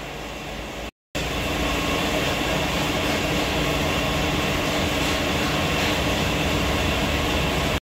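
Steady mechanical noise with a constant hum, as of a running machine in a workshop. It cuts out briefly about a second in, then carries on louder and unchanged.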